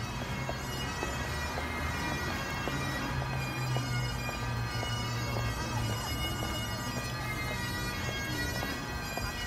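Bagpipes playing, with steady drones held under the melody.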